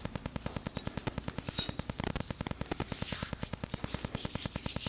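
A rapid, even run of mechanical clicks, about a dozen a second, keeping a steady pace throughout.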